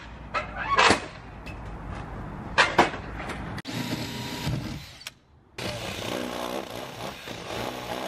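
A few short sharp sounds, then a cordless drill boring through OSB plywood in two runs from about halfway in, with a brief pause between them.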